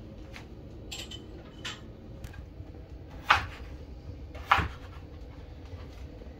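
Kitchen knife cutting potatoes on a wooden cutting board: scattered light knocks, with two sharp louder chops about three and four and a half seconds in.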